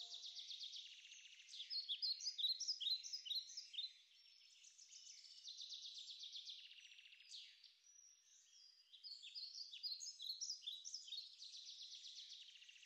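Birds singing: rapid high trills mixed with runs of quick, downward-sliding chirps, loudest about two seconds in and again about nine seconds in.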